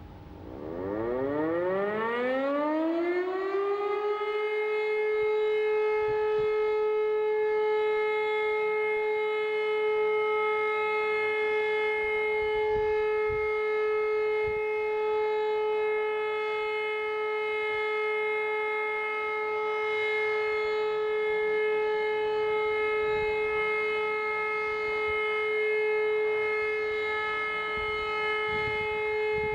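E57 electromechanical civil-defence siren spinning up, its pitch rising over the first few seconds, then holding one steady tone: the continuous all-clear (Entwarnung) signal.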